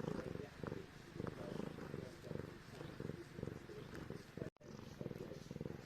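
Domestic cat purring close up, a rhythmic pulsing with each breath in and out, with a brief gap about four and a half seconds in.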